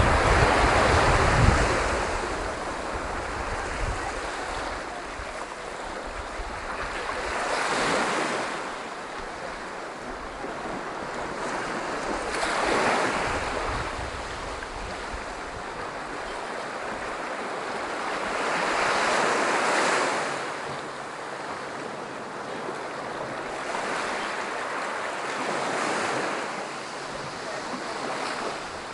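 Sea waves breaking on a beach, the wash of surf swelling and easing again every six or seven seconds. Wind rumbles on the microphone in the first couple of seconds.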